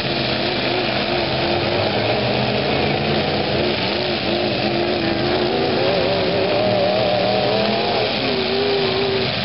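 Several demolition derby pickup trucks' engines running and revving at once, their pitch wavering up and down over a steady din; one engine revs higher for a couple of seconds past the middle.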